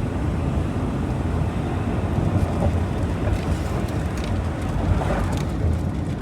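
Steady engine and road noise from a loaded truck cruising along a mountain highway, a constant low rumble with no change in pace.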